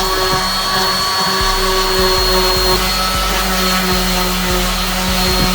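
Electric power sander running steadily on a scuffed car bumper: a constant motor whine over an even hiss.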